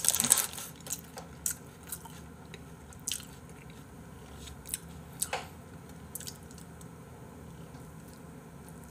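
A person chewing a handmade burger close to the microphone: scattered soft wet bites and crunches a second or more apart, with a paper wrapper crinkling at the start.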